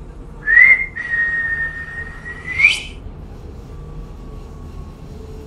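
A person whistling: a short rising note, then a long high note held steady that flicks sharply upward at the end.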